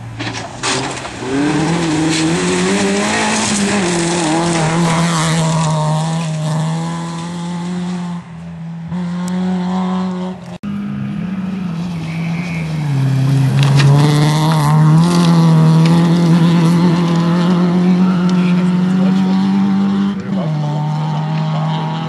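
Rally car engine heard from inside the cabin, running hard at speed over road and tyre noise. Its note holds steady, dipping and rising a few times as the car changes gear or lifts off.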